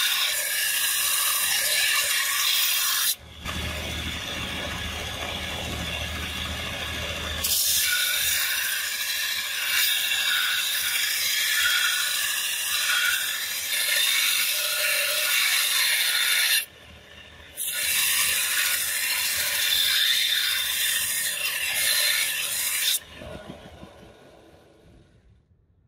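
Belt grinder with a steel sword blade pressed against the running abrasive belt: a steady, loud rasping hiss of metal being ground. The sound turns duller for a few seconds early on, dips briefly around seventeen seconds in, and dies away over the last three seconds.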